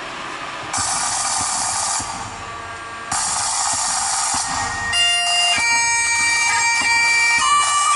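Bagpipe music: a steady drone with a chanter melody comes in about five seconds in. Before it there are two spells of loud steady hiss, each lasting about a second and a half.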